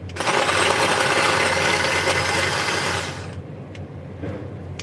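Small battery-powered electric garlic chopper whirring for about three seconds, then dying out as its flat battery gives up.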